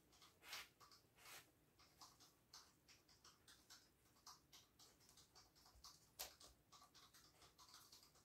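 Faint, scattered ticks and rustles of a beagle nosing and eating kibble in a fabric snuffle mat, then moving about on the rug; a few ticks stand out a little louder.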